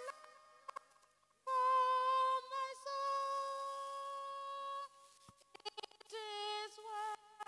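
A woman singing solo and unaccompanied into a microphone, holding long steady notes. One phrase starts about a second and a half in and ends just before five seconds, and a second phrase begins about a second later, with near-quiet pauses between them.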